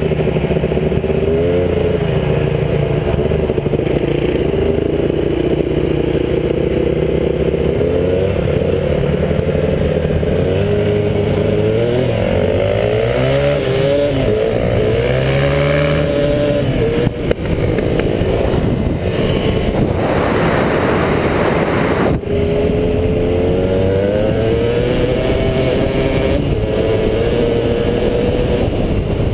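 Kawasaki KDX 220 two-stroke dirt bike engine running hard, its pitch climbing and falling again and again as the rider accelerates and shifts. About two-thirds of the way through the engine note fades under a rushing hiss with a sharp click, then the revving picks up again.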